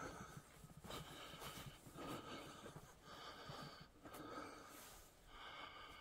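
Faint, regular breathing of a person walking, about one breath a second.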